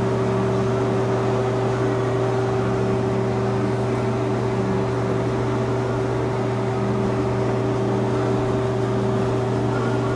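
Steady, unbroken machine hum of spray-booth equipment running, a constant motor drone with a fan-like rush of air over it.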